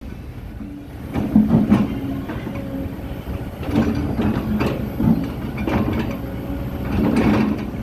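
Excavator's diesel engine running steadily under load, with a series of irregular metallic clanks and knocks from the working machine.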